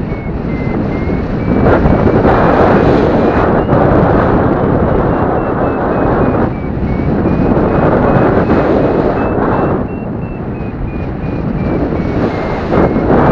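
Wind rushing and gusting over the microphone of a paraglider pilot in flight. Through it, a paragliding variometer beeps rapidly, its pitch drifting up and down with the climb rate, the sign of the glider climbing in lift.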